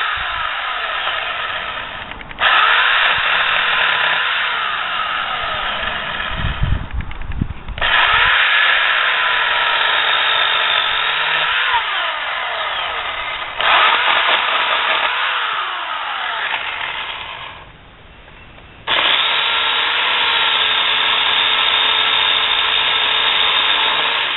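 Chicago Electric 1.5 hp electric pole saw running in four bursts as its chain cuts through dead peach branches, the pitch sagging each time the chain bites into the wood. There are short breaks where the trigger is let go, with a few low thumps in the break about seven seconds in.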